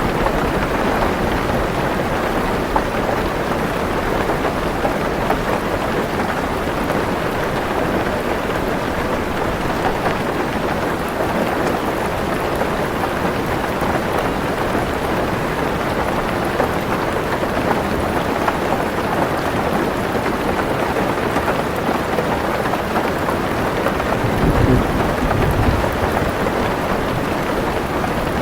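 Heavy rain drumming on a car's roof and windows, heard from inside the car as a steady, even hiss. A low rumble of thunder rises and fades near the end.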